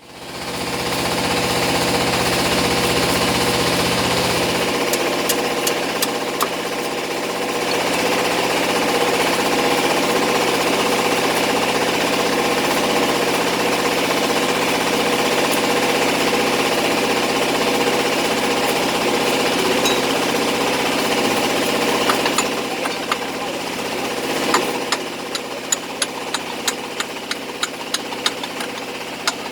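Diesel engine idling steadily with a knocking clatter. From about 25 seconds in, sharp ticks come several times a second over the engine.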